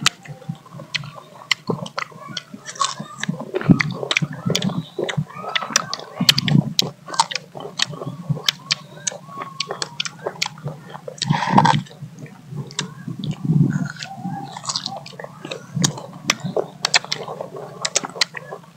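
Several people biting and chewing mango slices dipped in chili sauce, with many sharp crunching clicks and mouth sounds, a few louder bites standing out.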